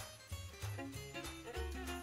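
Background music: a lively tune over a bass line that moves from note to note.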